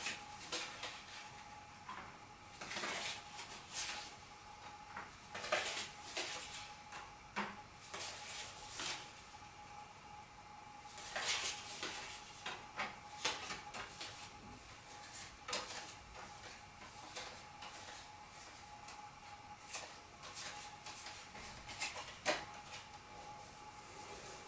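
Playing cards being handled and set in place on top of a tall house of cards: scattered light clicks and short rustling slides, a few every few seconds, over a faint steady high hum.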